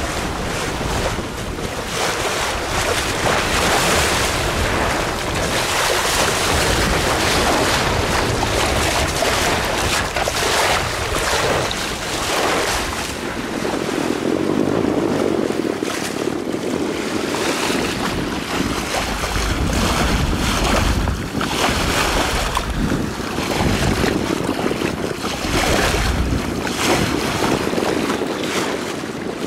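Wind buffeting the microphone over the wash of water rushing along a 38-foot sloop's hull under sail, rising and falling in uneven surges.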